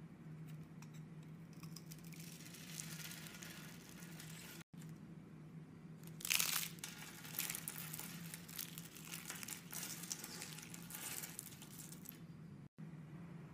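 Soap being crushed by hand: a bar scored into small cubes is squeezed until the cubes crackle apart, then thin brittle pieces of soap are crumbled between the fingers into shards, with crisp crackling and snapping, loudest about six seconds in. A faint steady hum runs underneath.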